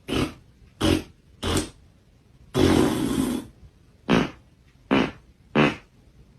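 A series of fart sounds: three short blasts, one longer one lasting about a second, then three more short blasts.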